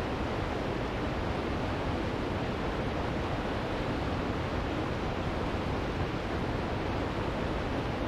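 A ninety-foot waterfall pouring steadily over rock: a deep, even rush of falling water with no change.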